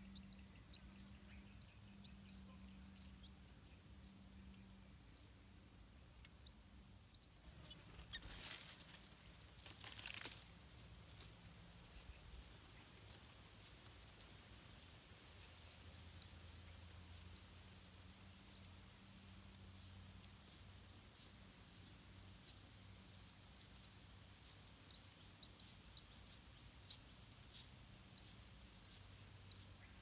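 Yellow-vented bulbul nestlings begging: thin, high, downward-slurred peeps, repeated steadily and quickening to about two a second from about twelve seconds in. Two brief rustles come around eight and ten seconds in.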